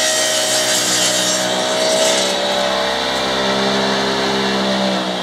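Sawmill machine running steadily with no wood in the cut, a droning hum whose pitch starts to sink near the end as it begins to wind down.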